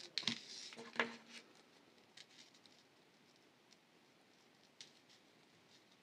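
Small clicks and taps of fine wire jewelry pieces and beads being handled, with a few louder knocks in the first second and a half, then only sparse faint ticks.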